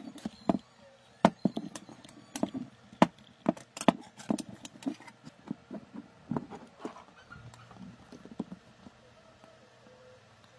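Irregular clicks and knocks of hands handling stiff insulated wire, bending it around a ferrite ring coil on a wooden board. The taps come thick and fast for the first few seconds, then grow sparser.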